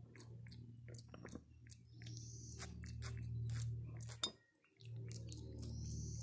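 Java macaque grooming up close: a run of quick clicks and chewing sounds from its mouth and fingers working through hair, over a steady low hum that cuts out briefly about four and a half seconds in.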